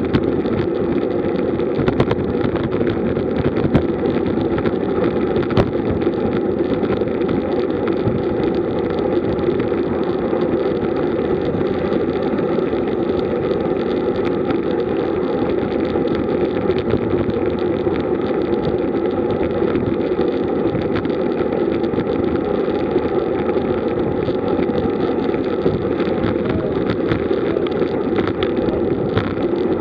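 Steady rushing wind and tyre noise from a road bike riding at about 40 km/h in a group, picked up by the bike-mounted camera, with a few light clicks in the first several seconds.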